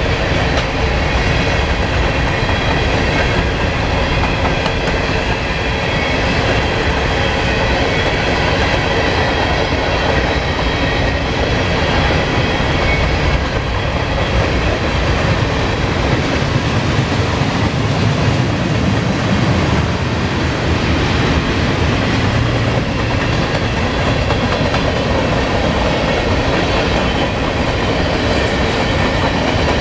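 Norfolk Southern mixed freight train's covered hopper cars rolling past, a steady rumble and clatter of steel wheels on the rails that holds level throughout.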